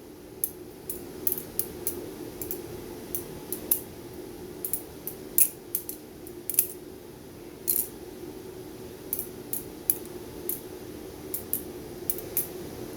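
Kershaw Lucha butterfly knife (balisong) being flipped with no latch, its handles and blade clacking together in quick, irregular metallic clicks.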